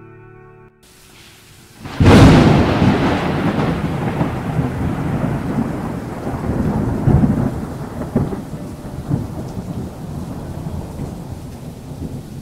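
A thunderclap: a sudden loud crack about two seconds in, followed by a long, uneven rolling rumble that slowly fades, over a steady hiss of rain.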